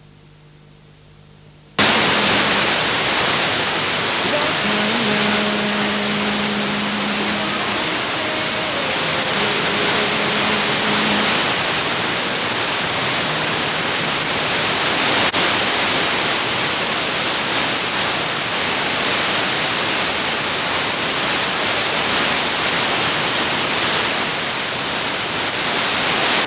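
Loud steady hiss of TV static from an analogue receiver losing the signal, cutting in abruptly about two seconds in after a low buzz: the station's microwave studio-to-transmitter link is dropping out, its signal weakened by heavy rain. Faint tones show briefly through the hiss.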